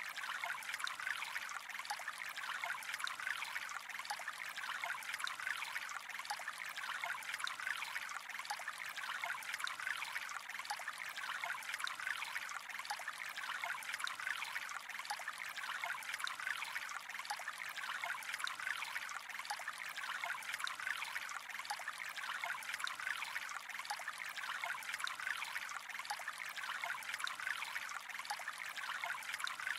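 Calm flowing water trickling steadily, with many small quick splashes and no change in level.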